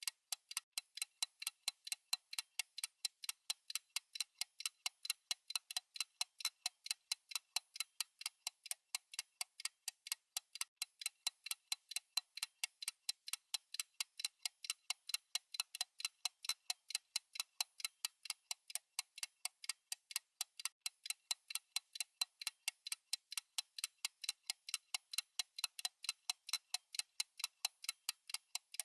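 Fast clock ticking sound effect: sharp, even, high-pitched ticks at about four a second, the steady tick of a countdown timer.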